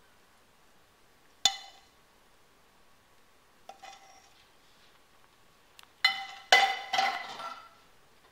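A ceramic plate clinking on a stone countertop as it is handled: one sharp ringing clink about a second and a half in, a softer one near four seconds, then a louder run of clinks and scrapes between six and seven and a half seconds.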